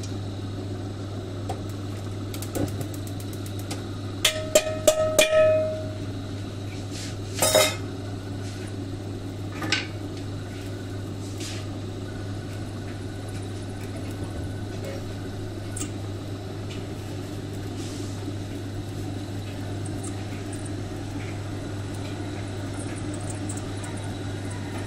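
Metal utensils clinking and clattering against a stainless steel stockpot: a burst of clinks with one short ringing note about five seconds in, another sharp clank a little later, then only occasional light ticks. A steady low hum runs underneath.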